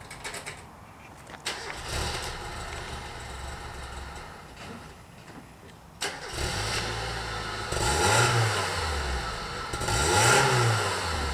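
Mazda Miata (MX-5 NA) four-cylinder engine catching with a sudden start about six seconds in, then running and revved twice, the pitch rising and falling each time. The owners say it won't idle on its own because of a vacuum leak.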